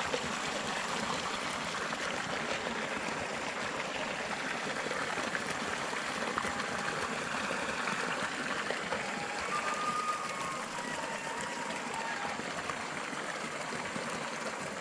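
Steady rushing and splashing of water at the pond's edge, from a large hooked fish thrashing at the surface beside the bank as it is brought to the landing net.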